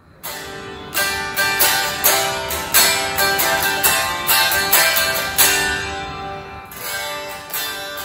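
A Gibson SG Standard electric guitar with its stock zamak tailpiece, heard acoustically without the amp, strumming a repeated chord pattern at about two to three strums a second.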